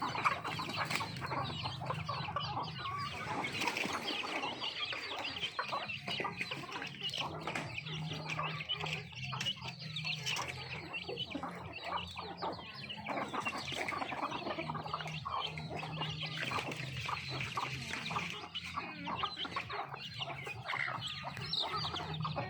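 A flock of chickens clucking and calling continuously, many birds at once, over a steady low hum.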